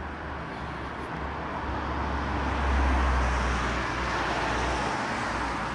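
A car passing by on the road, its tyre and engine noise swelling to a peak about halfway through and then fading away.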